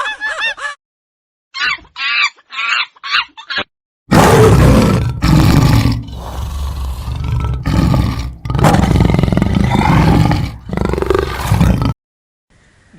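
A large animal roaring, a series of long, loud, deep roars with short breaks, beginning about four seconds in. Before that come a few short pitched calls.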